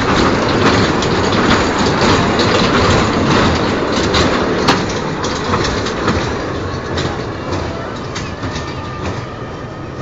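Children's ride train running along its track, a dense rumble with irregular sharp clicks, growing gradually quieter over the last few seconds.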